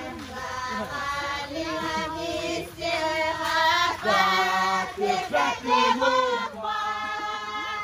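A group of children singing together, a song of long held notes that slide between pitches.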